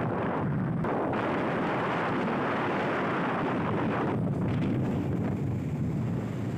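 Wind buffeting the microphone of a motorcycle on the move: a steady, dense rushing noise.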